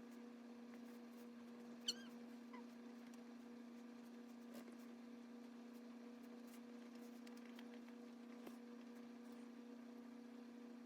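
Near silence with a steady low electrical hum and a few faint ticks; about two seconds in, one brief high squeak that falls in pitch.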